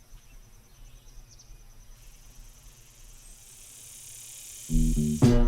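Quiet outdoor ambience with a cricket-like insect trilling on one high note, which stops about a second and a half in; a hiss then swells, and loud upbeat funk-style music comes in about four and a half seconds in.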